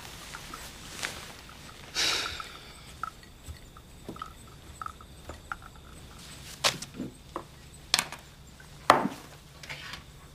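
Paper rustling as magazine pages are handled and turned, with a few scattered light taps and sharper clicks.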